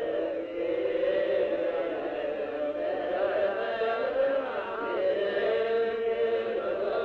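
Ethiopian Orthodox clergy and worshippers chanting a prayer together, several voices holding long notes that waver up and down without a break. The old film sound cuts off the high end, so it sounds muffled.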